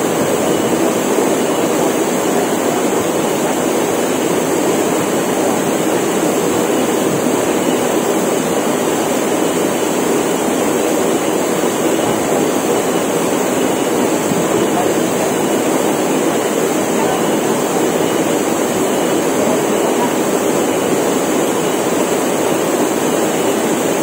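Small waterfall pouring into a rock pool: a steady, even rush of water. A continuous high cicada drone sits above it.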